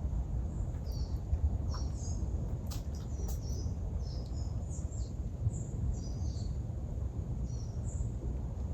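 Small birds giving short, high chirps scattered through, over a steady low rumble.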